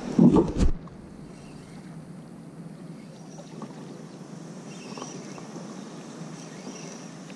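Water lapping and splashing against a sit-on-top fishing kayak, with light wind noise on the microphone. Two loud knocks come in the first second.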